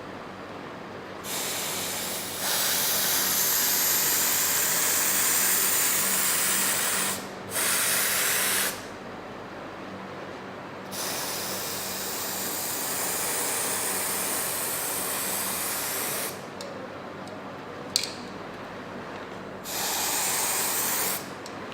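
Aerosol can of penetrant-test developer spraying onto a weld in four long hisses, the longest about six seconds, with short pauses between them. A single sharp click comes between the last two sprays.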